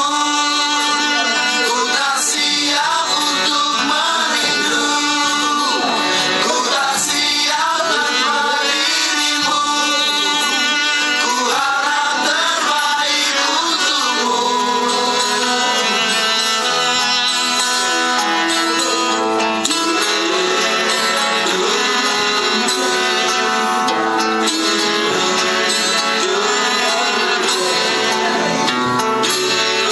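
A song playing: music with a singing voice over plucked string instruments.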